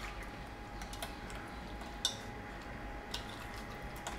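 A hand mixing masala-coated lady fish in a stainless steel bowl: faint handling sounds with a few light, sharp clicks about once a second.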